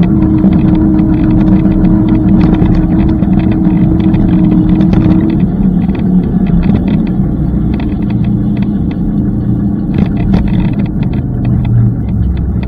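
Riding noise on an electric scooter: a continuous low rumble with many small rattles and clicks from the ride. A steady hum stops about five seconds in.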